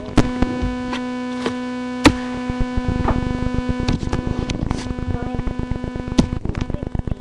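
Steady electrical buzz picked up by a moving webcam, with sharp clicks and crackles as the camera and its cable are handled. From about three seconds in the clicks come thick and fast, and the buzz weakens about a second later.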